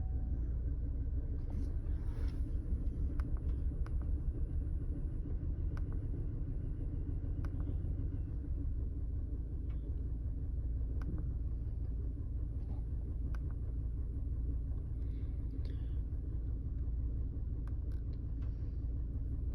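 2005 Chevy Colorado's 3.5-litre inline-five idling rough with a steady low rumble, plus a few scattered light clicks. The engine is misfiring (code P0300), the misfire counter showing it worst on cylinder 3.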